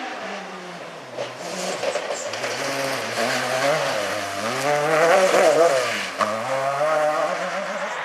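Off-road rally car's engine revving hard as it drives past on a dirt stage, its pitch rising and falling several times with throttle lifts and gear changes. It is loudest about five seconds in as the car slides by at full power.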